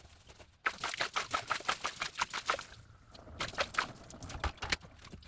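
Rapid scrubbing or brushing strokes on parts of a dismantled electric fan during cleaning, about eight sharp strokes a second, in two runs of about two seconds and a second and a half.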